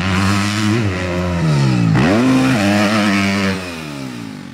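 Motocross bike engine revving up and down as it is ridden on the track, its pitch dropping and then climbing sharply about two seconds in, then fading out near the end.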